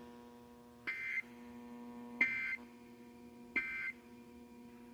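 Emergency Alert System end-of-message data bursts: three short buzzy digital tone bursts about 1.3 seconds apart, marking the end of the alert, over a faint steady hum.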